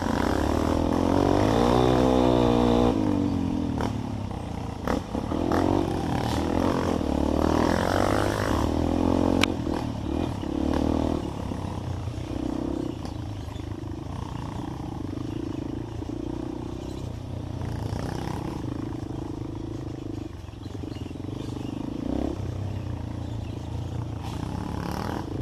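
Trail motorcycle engine revving, its pitch rising and falling as the throttle is opened and closed. It is loudest in the first few seconds and again around eight seconds in, then runs more steadily.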